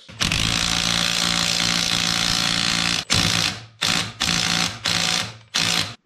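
Power impact wrench hammering a newly made nut onto a skid steer wheel stud: one long run of about three seconds, then five short bursts as it snugs the nut tight.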